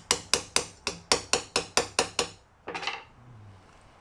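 Quick, light hammer taps on a punch, about five a second, driving a ring down into its seat in a bearing housing. The taps stop about two seconds in, followed by a brief metallic clatter.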